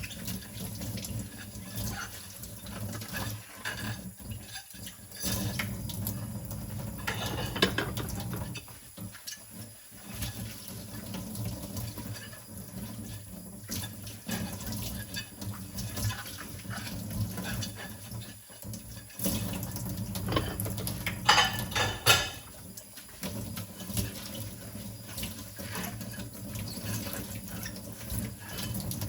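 Water running from a tap into a kitchen sink while dishes are washed by hand, with scattered clinks and knocks of dishes, a few of them close together about two-thirds of the way through.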